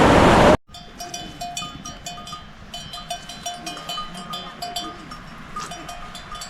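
A loud rushing noise cuts off about half a second in, then livestock bells clank irregularly, several light metallic strikes a second.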